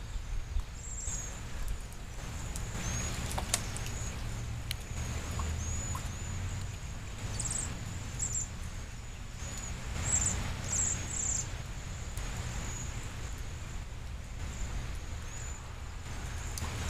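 A flock of small songbirds chirping: many short, high calls overlapping, with a few quick trilled bursts in the middle. A steady low rumble sits underneath.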